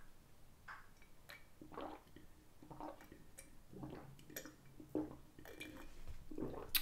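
Quiet gulps of a person drinking from a glass, a soft swallow roughly every half second to second, about a dozen in all.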